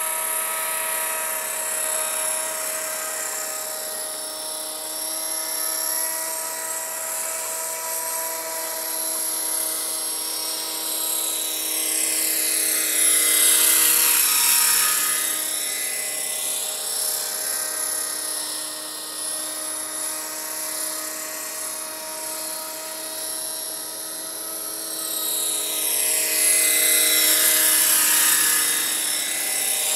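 T-Rex 500 radio-controlled helicopter with a Bell 212 scale body, flying low with a steady high-pitched rotor and drivetrain whine. It swells louder as the model passes close twice, about halfway through and near the end, then fades as it moves away.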